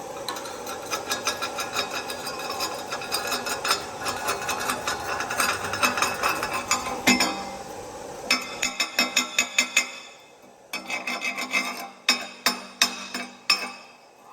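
Wire brush scrubbing a fresh weld bead on steel to clean it. The scraping strokes come thick and fast at first, then about eight seconds in they turn into separate strokes, about four a second, with a short break near the ten-second mark.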